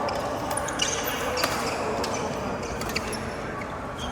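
Badminton rally: three sharp racket strikes on the shuttlecock, the last two about a second and a half apart, with brief high squeaks of shoes on the court.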